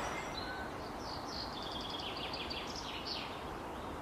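Birds chirping in a run of short, quick high notes that stops about three seconds in, over a faint steady outdoor background.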